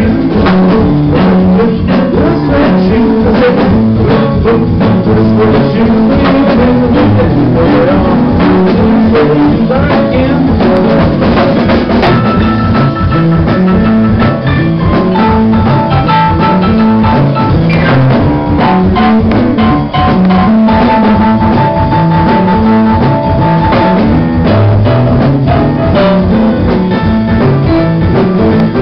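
Live band playing a rock-and-roll number without vocals: drum kit, electric guitar, keyboard and a stepping bass line. From about halfway through, long held notes sit over the rhythm.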